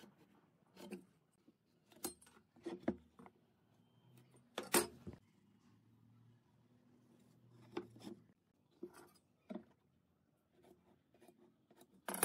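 Scattered clicks and taps of a steel square and a pencil being set down and handled against a wooden board on a wooden workbench, with light pencil strokes as marking lines are drawn. The sharpest knocks come about five seconds in and at the very end.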